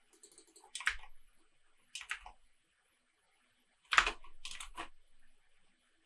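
Computer keyboard keystrokes and mouse clicks: a single click about a second in, another about two seconds in, then a quick run of keystrokes around four seconds in.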